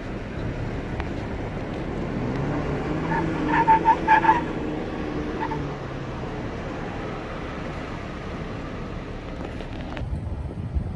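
Nissan Xterra's engine working up a sandstone slope, its pitch rising for a few seconds. In the middle a dog barks about five times in quick succession, then once more.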